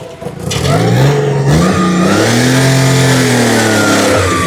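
1994 Honda Acty mini truck's carbureted engine revving as the truck accelerates. Its pitch climbs about half a second in, then rises and falls again in a long swell through the middle.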